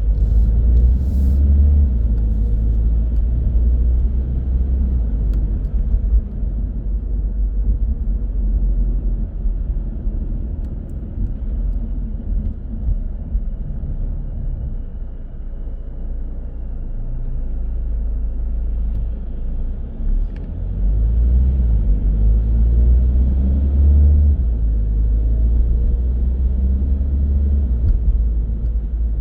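A car driving in city traffic, its engine and tyres giving a steady low rumble that eases off in the middle and grows louder again about two-thirds of the way through.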